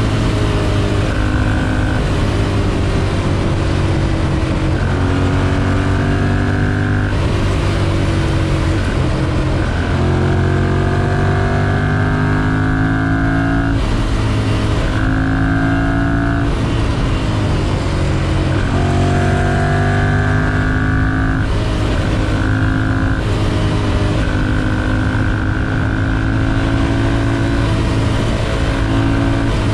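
A 2011 Ducati Monster 696's air-cooled L-twin engine accelerates through the gears. The exhaust note climbs in pitch for a few seconds, drops suddenly at each upshift, then climbs again, several times over.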